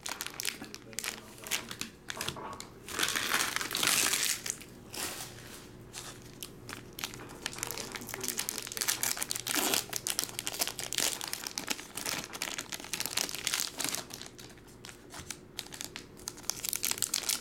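Crinkling and rustling of plastic trading-card pack wrappers being handled, with scattered light clicks; it is loudest for a couple of seconds about three seconds in.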